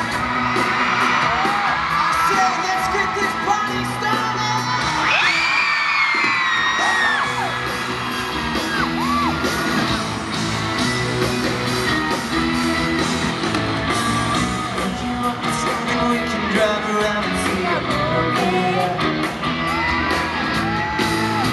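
Pop-rock band playing live through an arena sound system, with electric guitar and lead singing, heard over the shrill screams and yells of excited fans close by; the screams are loudest about five to seven seconds in.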